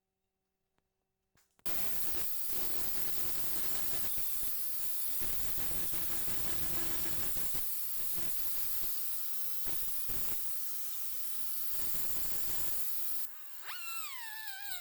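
Loud steady hissing spray that starts suddenly about a second and a half in, with brief dips. Near the end it gives way to a high, wavering whine.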